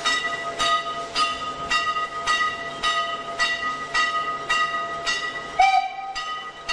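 Steam locomotive working slowly, its exhaust beating in regular chuffs about twice a second over a steady high whine. Near the end the chuffs pause for a short whistle blast of about a second.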